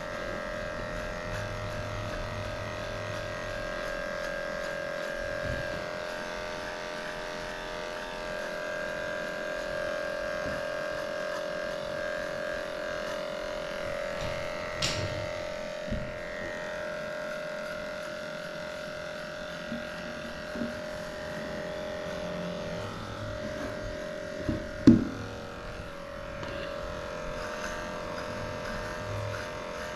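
Cordless electric dog grooming clipper running steadily as it shaves a schnauzer's coat, a constant high-pitched hum whose pitch shifts slightly about halfway through. A sharp tick comes about halfway, and a loud knock a few seconds before the end.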